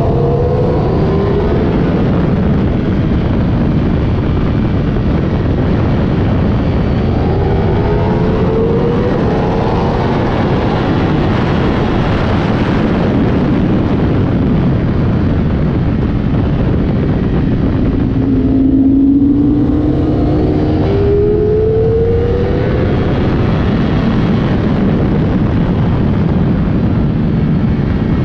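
Ducati Streetfighter V4 SP's V4 engine at speed on track, its pitch climbing three times as it accelerates hard, under a heavy rush of wind and road noise.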